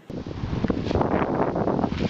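Wind blowing on the microphone: a rough, steady rush, heaviest in the low end, with scattered light clicks.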